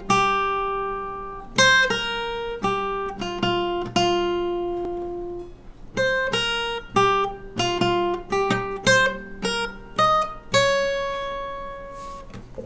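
Acoustic guitar played fingerstyle: a slow melody of single plucked notes, each ringing on and fading before the next, with a short pause about halfway through.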